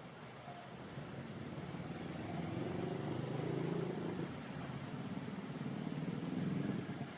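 A motor vehicle's engine running as it climbs the steep hill, getting louder from about a second in, easing off briefly in the middle and loud again near the end.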